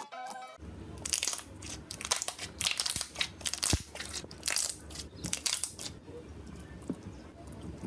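Crunchy slime squeezed and pressed by hand, giving quick irregular crackling crunches that are densest in the first several seconds and then thin out.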